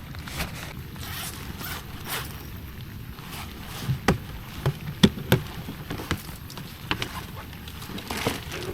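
Handling noise: a scatter of sharp clicks and scraping strokes, the loudest run about halfway through and another near the end, over a steady low rumble like wind on the microphone.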